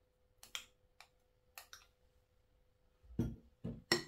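A spoon clicking against a glass bowl as butter is scraped into a bowl of flour: a few light clicks, then several heavier knocks about three seconds in as the spoon works in the bowl.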